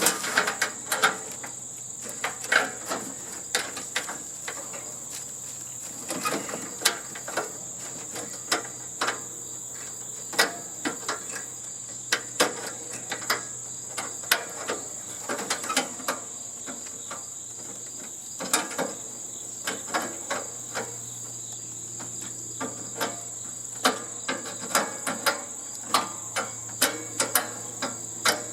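Irregular sharp clicks and metal knocks of hand tools working loose the screws of a sheet-metal cover on a heating and air-conditioning unit, over a steady high-pitched drone.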